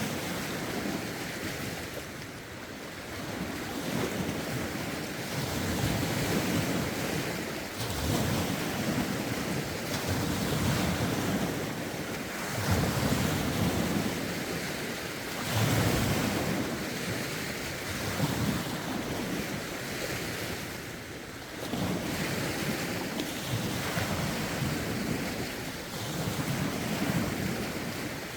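Lake waves lapping and breaking against the shore, swelling every few seconds, with a steady rush of wind and some wind buffeting on the microphone.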